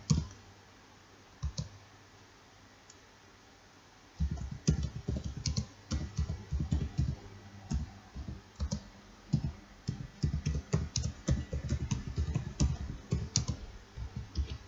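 Typing on a computer keyboard: after a quiet pause, a rapid, irregular run of key presses starts about four seconds in and goes on without a break.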